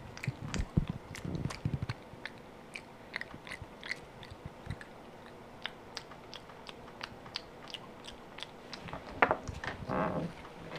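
Java macaque chewing with its mouth open, making a run of small wet smacking clicks that are busiest in the first couple of seconds. Near the end there is a louder brief rustling noise.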